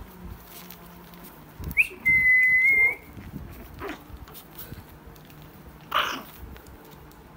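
Shih Tzu puppies yelping while they play, with one short, sharp yelp about six seconds in. About two seconds in, a high, steady whistle-like tone lasts about a second and is the loudest sound.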